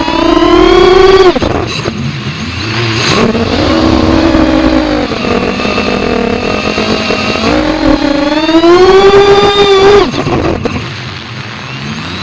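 FPV racing quadcopter's brushless motors and propellers whining, the pitch rising and falling with the throttle. It climbs and drops off sharply at the start, holds lower through the middle, then climbs again and cuts off suddenly near the end as the throttle is chopped.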